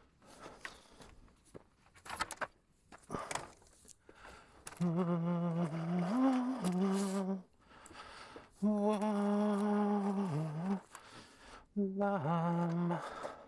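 A man humming a tune in long held notes, three phrases with small steps in pitch. Before the humming, some short clicks and rattles.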